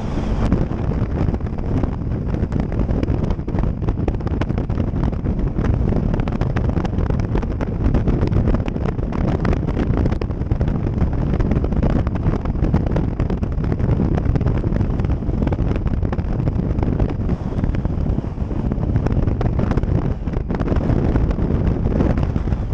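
Wind rushing and buffeting over a camera microphone on a Triumph Tiger 800 XCx motorcycle moving at road speed: a loud, steady, dense rumble.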